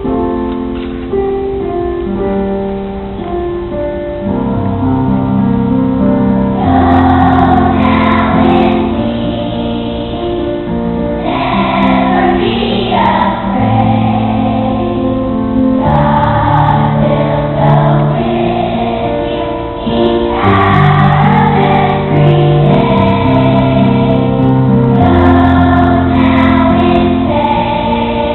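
Music: a song with a choir of voices singing over held keyboard chords, the voices coming in about six seconds in.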